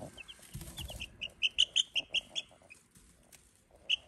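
Young chicks, about two weeks old, peeping: a quick run of short high chirps in the middle, and a few more near the end.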